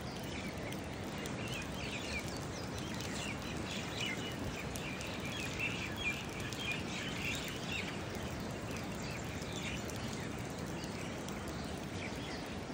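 Several small birds chirping and singing, busiest in the middle, over a steady rushing background noise.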